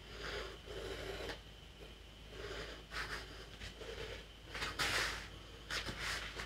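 A person exercising on foam floor mats: short, irregular bursts of breath, and hands and bare feet rubbing and shifting on the mat as he kneels, plants a hand and sweeps a leg out. The loudest burst comes about five seconds in.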